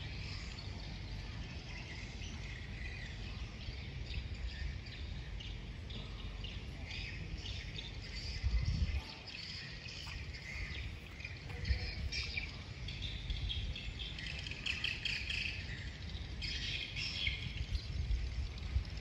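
Birds chirping and calling in short clusters that come and go, over a steady low rumble that swells briefly about eight and a half seconds in.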